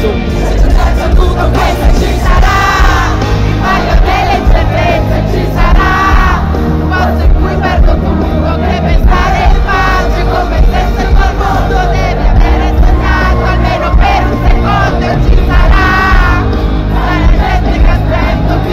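Loud live pop-rock concert music from a large PA system, with steady bass and drums and a sung melody rising over it every few seconds, mixed with crowd voices.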